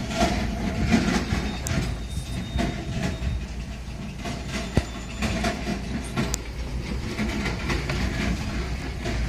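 Mahindra Bolero driving over a loose-rock track, heard from inside the cabin: the body and suspension rattle and knock over the stones under a low engine rumble, with one sharper knock about five seconds in.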